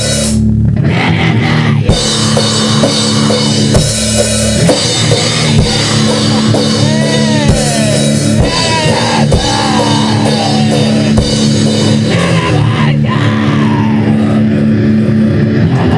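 Heavy metal music: distorted guitar over a drum kit, with sliding, bending pitches in the middle.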